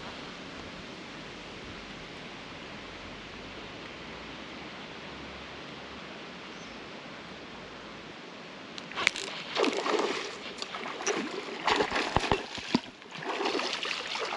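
Steady outdoor wind-and-water ambience, then from about nine seconds in a hooked fish thrashing and splashing at the water's surface close to the bank, in loud irregular bursts.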